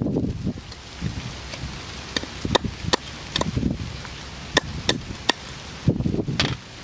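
Kitchen knife chopping on a round wooden chopping board: about eight sharp knocks at uneven intervals, with softer thuds of handling between them.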